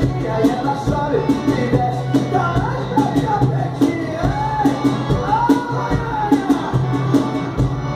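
FSA cajón slapped by hand in a steady, quick groove, playing along with a sertanejo song: a voice sings a melody over a steady bass line.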